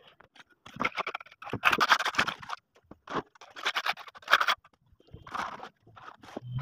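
Steel mason's trowel scraping and spreading wet cement mortar in a run of irregular strokes. The longest and loudest strokes come about two seconds in.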